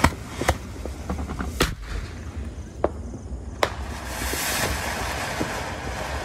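A ground firework going off: five sharp bangs of shots launching over the first few seconds, then a steady hiss as it sprays a fountain of sparks from about four seconds in.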